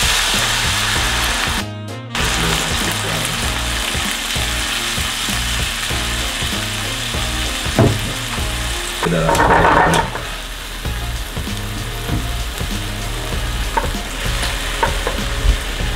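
Chicken, vegetables and sugar caramel sizzling hard in a hot frying pan as red wine deglazes it. The sizzling briefly cuts out about two seconds in and surges louder about nine seconds in. A metal utensil scrapes and taps in the pan as it is stirred.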